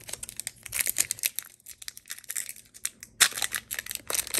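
Foil wrapper of a Pokémon booster pack crinkling and tearing as it is opened: a dense crackle with a louder burst about three seconds in.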